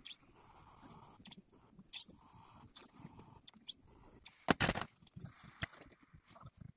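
A needle tool scratching and clicking against leather-hard clay as trimmings are picked out of a jar's inner rim, in small irregular crunches and scrapes. A single louder knock comes about four and a half seconds in.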